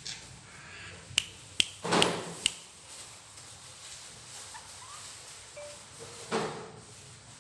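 Pet parrot making a few sharp clicks and two short, breathy rasping sounds, with faint brief whistles in between.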